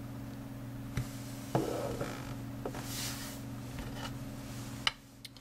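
Plastic vertebra models being handled and set down on a tabletop: a few light knocks and a short rustle of handling. A steady low hum runs underneath and cuts off abruptly near the end.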